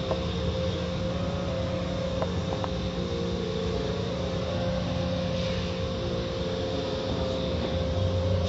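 Automatic car wash running, heard from inside a car passing through it: a steady machine hum with water spraying and cloth wash strips sweeping over the windshield, and a brief rush of spray about five seconds in.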